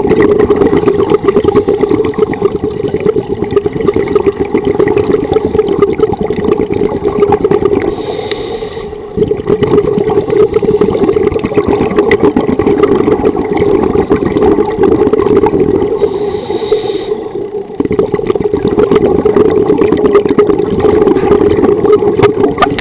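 Muffled underwater rumble of scuba breathing: a steady bubbling roar, broken twice by a brief high hiss of the regulator as it eases off.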